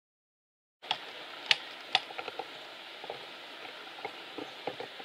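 Silence for the first second, then a steady background hiss with scattered sharp clicks and ticks, the two loudest about a second and a half and two seconds in.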